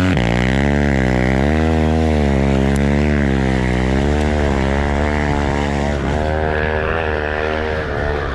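Four-stroke single-cylinder dirt bike engine revving up and down under load as it climbs through snow, its pitch rising and falling about once a second.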